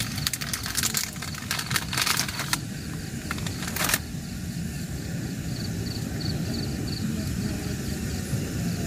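Plastic food wrappers crinkling and tearing as they are opened by hand, in quick sharp rustles through the first two and a half seconds and once more about four seconds in. After that a steady low rumble remains.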